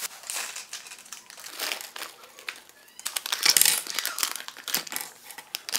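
Plastic parts bag crinkling and rustling as it is handled and opened, loudest about three to four seconds in, with a few light clicks among the crackle.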